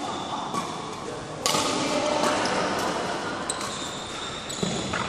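Badminton rally in a large hall: a series of sharp racket strikes on the shuttlecock, the loudest about one and a half seconds in, with short high shoe squeaks on the court floor and a murmur of voices under them.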